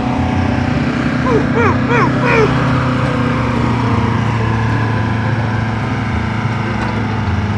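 A vehicle engine running steadily at an even pitch, with four quick chirps, each rising then falling, between about one and a half and two and a half seconds in.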